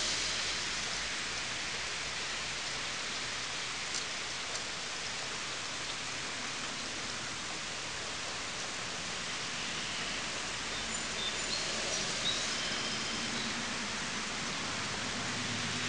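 Steady rain falling on pine trees, an even hiss. A few short, high chirps come about two-thirds of the way through.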